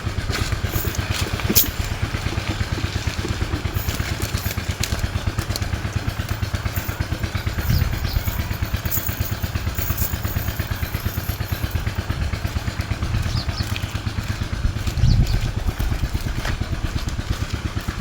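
Small engine running steadily at a low, even pulse, with a few light clicks and knocks over it.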